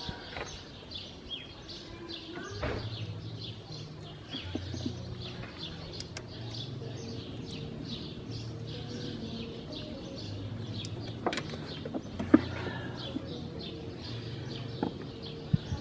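Small birds chirping over and over, with pigeons cooing in low repeated phrases from about two and a half seconds in. A few sharp clicks come from hand tools being worked in the car's engine bay.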